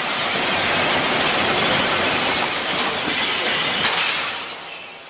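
Kimchi-making factory machinery running with a steady, dense mechanical clatter; a sharp clack comes about four seconds in, after which the noise quickly gets quieter.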